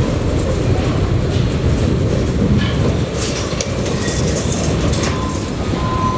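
Front-loading garbage truck's diesel engine running as the truck drives slowly in, a heavy low rumble with rattling. A burst of hiss comes about three seconds in, and a thin high steady tone starts near the end.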